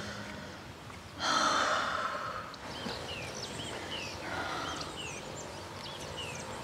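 A woman in labour breathing hard through a contraction: a loud, heavy breath out about a second in and a softer one a few seconds later. Small birds chirp from about three seconds in, short high calls about every half second.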